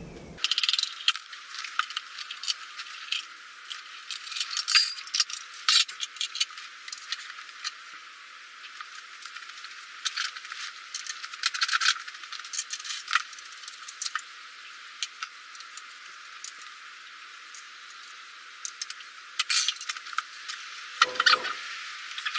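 Irregular metallic clinks and rattles of hand tools and loose parts, coming in clusters with short pauses, as the air cleaner is taken off a Harley-Davidson Shovelhead engine.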